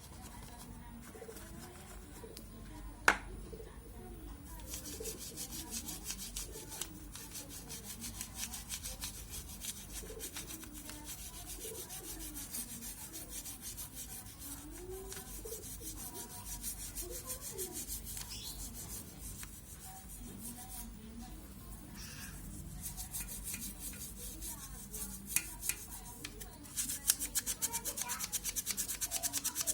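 A stiff brush scrubbing quickly back and forth in rapid strokes. The scrubbing starts a few seconds in and becomes much louder and harder near the end. A single sharp click comes about three seconds in.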